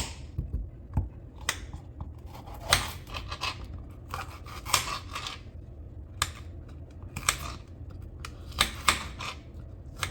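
Kitchen knife slicing and dicing a green bell pepper on a cutting board: irregular crisp cuts and taps of the blade on the board, some in quick runs.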